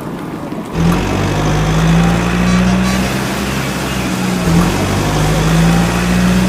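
Steady motor drone with a low hum, starting abruptly about a second in and running on, with a brief dip midway.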